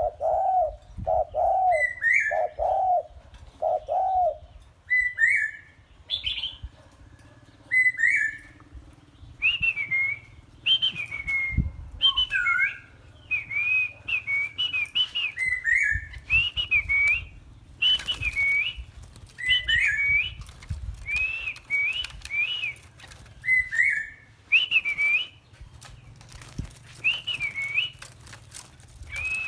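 Songbirds singing in short, clear whistled phrases. In the first four seconds there are four low notes; after that comes a long run of higher notes that rise and fall, repeated many times.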